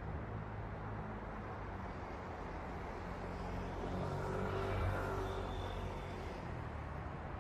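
Steady hum of city road traffic. A single vehicle passes about four to six seconds in, rising to its loudest near the five-second mark and fading away.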